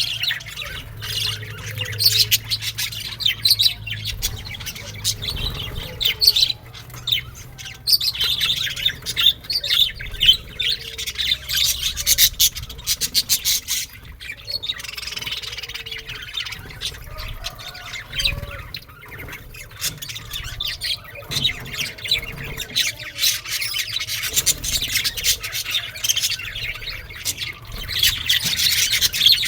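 A flock of aviary birds chirping and squawking continuously, many short overlapping calls.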